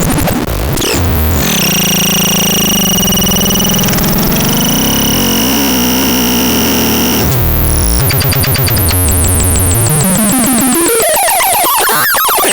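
Synthesizer being played as a sound demo: a harsh held sound with steady high whistling tones for several seconds, then a low drone, then a tone gliding upward in pitch near the end.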